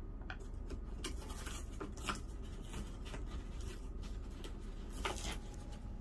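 Blue-and-gold macaw chewing and tearing a cardboard box flap with its beak: irregular, scattered crackles and small rips of cardboard, starting about half a second in.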